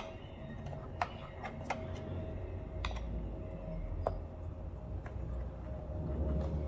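Scattered light clicks and taps of small parts being handled on a workbench, about five over several seconds, over a steady low hum.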